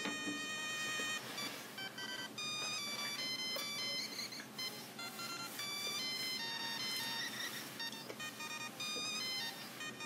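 A tinny electronic melody of quick, high stepped notes, played through the small speaker of a Dell Axim X51v PDA as a virus payload runs.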